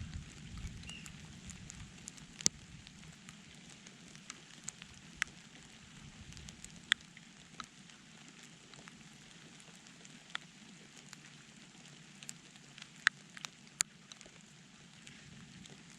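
Light rain: a soft steady hiss with scattered single drops ticking sharply close by, a dozen or so at uneven intervals. A low thunder rumble dies away about a second in.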